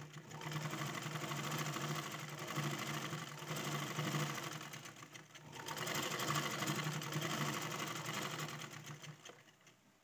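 Black straight-stitch sewing machine running steadily as it stitches a seam in red fabric. It slows briefly about five seconds in, picks up again, and stops shortly before the end.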